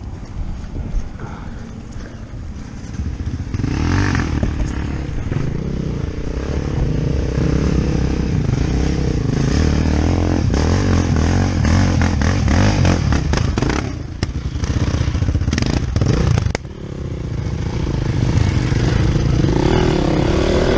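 Small vehicle engine running and revving, its pitch rising and falling, with some clatter. It gets louder about three and a half seconds in, drops out suddenly about sixteen seconds in, then picks up again.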